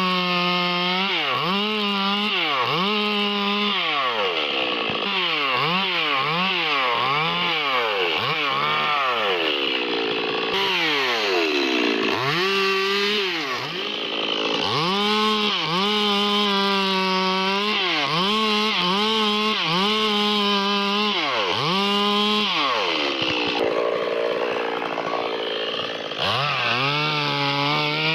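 Stihl MS 382 two-stroke chainsaw running near full throttle, its pitch dropping and climbing back over and over as it comes under load cutting wood.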